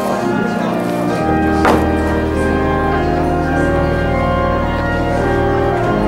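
Organ music playing slow, held chords, with a deep bass note coming in about a second in. A single sharp click sounds about two seconds in.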